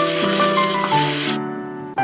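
Gentle piano background music. Under it, an immersion blender whirs in pumpkin purée, then cuts off suddenly about two-thirds of the way through.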